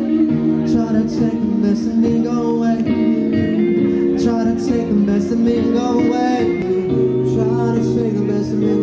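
Live band playing a song through the PA, a voice singing over guitar.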